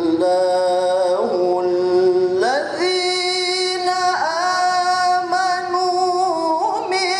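A man's melodic Qur'an recitation (tilawah), amplified through a microphone, sung in long held notes joined by ornamented glides, with a sweep up to a higher held note about two and a half seconds in and a dip and rise about four seconds in.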